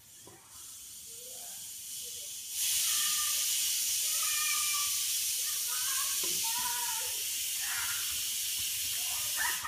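Compressed air hissing steadily as it is blown into a handheld pressure pump's intake to pressurise a boost gauge toward 10 psi. The hiss grows much stronger about two and a half seconds in and cuts off just before the end.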